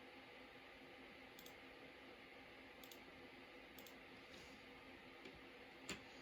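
Near silence: faint steady hiss and hum, broken by four short scattered clicks, the last near the end a little louder.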